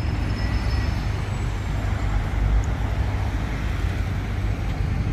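City street traffic: buses and cars running past, a steady low rumble.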